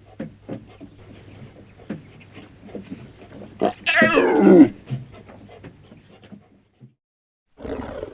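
Cartoon dinosaur creature sound effect: a string of short, quick noises over a low steady hum, with one loud cry about four seconds in that falls in pitch. It stops about seven seconds in, and a different creature call starts just before the end.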